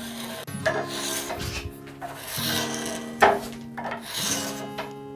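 Curved card scraper drawn in several rasping strokes along the tapered end of an oak pool cue, shaving the wood. A sharp tick comes about three seconds in.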